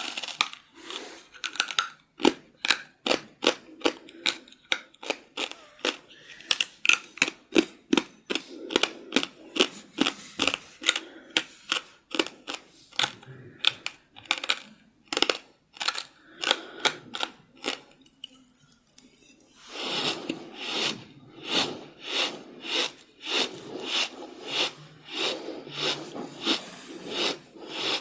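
Very heavy, rapid breathing: quick noisy breaths about three a second, with a short pause about two-thirds through before the breaths resume.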